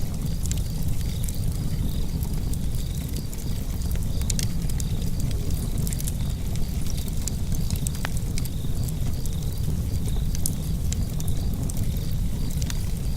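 Wood fire burning in a fireplace: a steady low rumble of the flames with frequent sharp crackles and pops scattered throughout.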